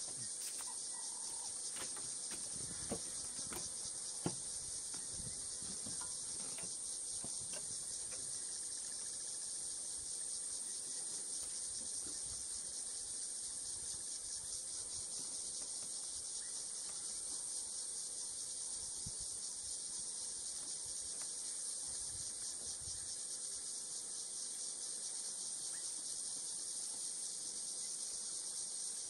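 A dense, steady, high-pitched insect chorus shrilling without a break, with two short knocks about three and four seconds in.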